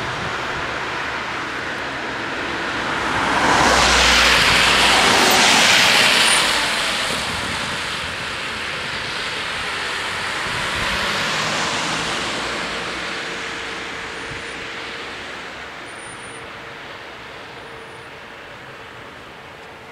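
Cars driving over a level crossing on a wet road, tyres hissing on the wet asphalt; one passes loudly about four to six seconds in and another about eleven seconds in, then the traffic noise fades.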